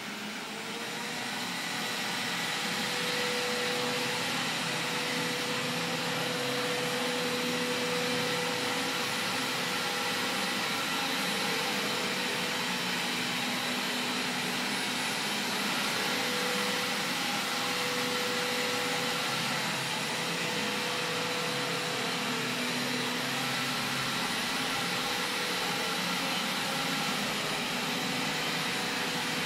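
Robot vacuum cleaner running: a steady whirr of its suction fan and brushes, with a faint whine that comes and goes.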